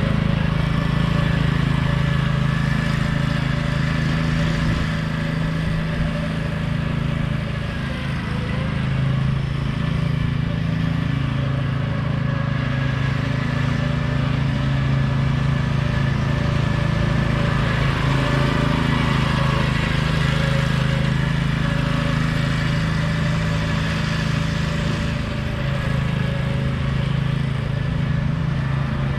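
Troy-Bilt riding lawn mower engine running steadily at working speed while mowing, a continuous low hum.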